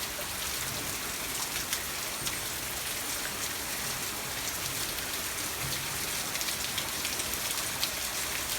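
Steady patter of falling water drops: an even hiss dotted with many small, sharp drop ticks, much like rain pattering on leaves and surfaces.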